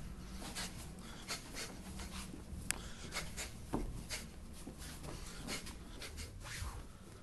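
A fighter shadowboxing: quick, sharp hissing exhales and swishing movement with each punch, about two to three a second and unevenly spaced, over a low hum, with one sharp click about two and a half seconds in.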